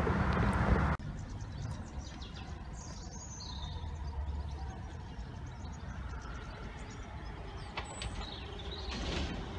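Electric suburban train running noise that cuts off suddenly about a second in. It leaves quieter trackside ambience: a low rumble, a few bird chirps, and near the end the swelling sound of a train approaching.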